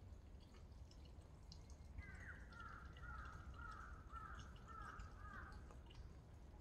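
A bird calling faintly: a quick run of about seven short, falling notes lasting nearly four seconds, starting about two seconds in.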